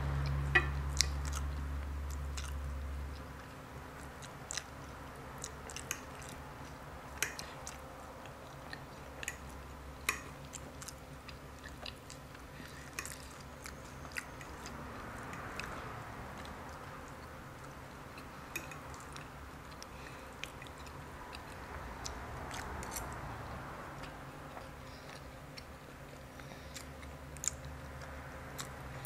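Close-miked chewing and biting of a person eating loaded carne asada fries, with scattered sharp clicks from the mouth and fork. A low hum drops away about three seconds in.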